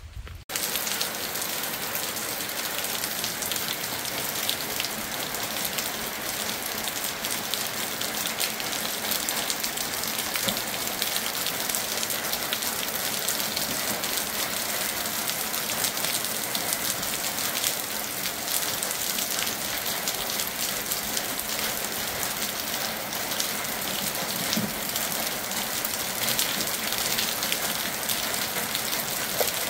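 Heavy rain falling steadily, a dense patter of drops on surfaces. It starts abruptly just after the start.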